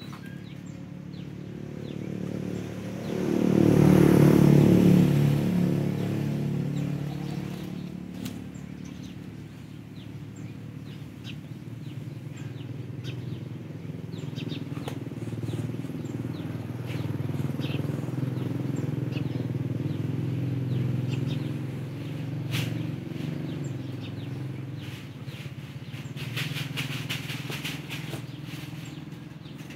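A small engine running, swelling to its loudest about four seconds in, then easing off and running on steadily. Birds chirp briefly now and then.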